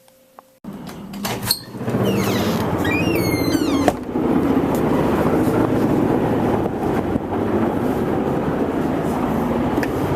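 Helicopters flying overhead: a loud, steady rumbling drone that starts abruptly, with small birds chirping a few seconds in.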